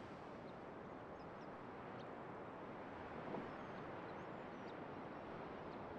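Faint steady background noise, with a few brief high chirps scattered through it and a soft thump a little over three seconds in.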